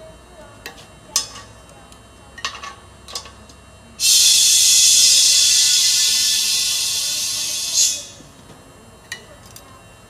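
Compressed air hissing steadily from a shop air hose for about four seconds, then cutting off sharply. Before and after it come a few light metallic clicks and taps of tools being handled.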